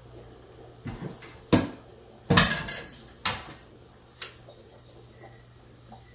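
Kitchen clatter: about six knocks and clinks of cookware and utensils, the loudest a short rattle about two and a half seconds in, then quieter over a steady low hum.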